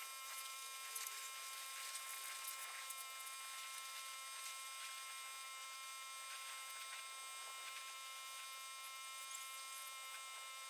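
Faint, steady hiss of a pressure washer spraying, with a steady hum under it, as the wand rinses a dump truck's wheels and lower body.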